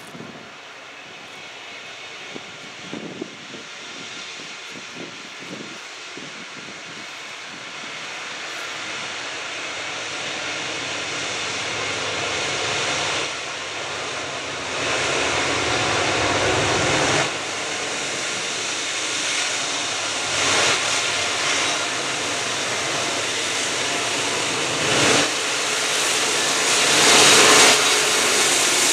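Diesel locomotives leading a Norfolk Southern coal train approaching, their engine rumble growing steadily louder as the lead units draw near, with a few louder surges in the last half.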